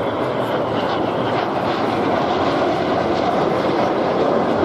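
Formation of BAE Hawk T1 jet trainers passing overhead: a steady jet-engine rumble that grows slightly louder.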